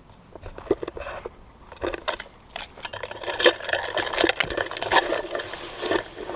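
Leaves and branches of garden shrubs rustling and scraping as someone pushes through them, with leaves brushing against the phone. The quick, irregular crackling is sparse at first, grows denser and louder from about halfway, and stops abruptly at the end.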